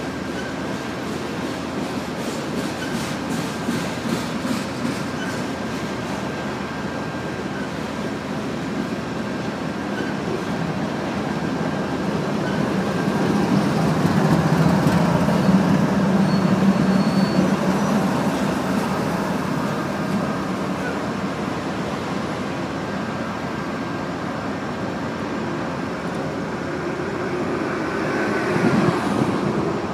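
Loaded covered hopper cars of a BNSF grain train rolling past, a continuous rumble of steel wheels on rail with clicking over the rail joints early on and a faint steady squeal above it. The rumble swells in the middle and rises briefly again near the end.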